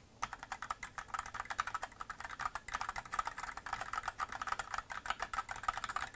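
Fast typing on a mechanical keyboard with Gateron Red linear switches and ABS keycaps: a dense, rapid stream of key clicks, a duller sound than Cherry Red switches give.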